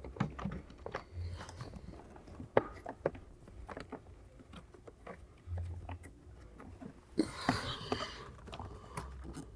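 Plastic lower cover of a cabin air filter housing being handled and fitted onto the box: scattered light plastic clicks and knocks, with a brief scraping rustle about seven seconds in.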